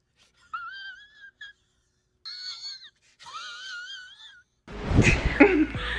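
A high-pitched, wavering whining wail in three drawn-out phrases, with silent gaps between them. Music and speech come in near the end.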